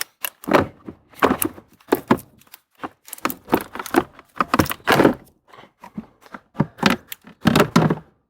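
Plastic cover over a car's AC blower motor being worked loose and pulled away: a run of irregular plastic knocks, clicks and short scrapes.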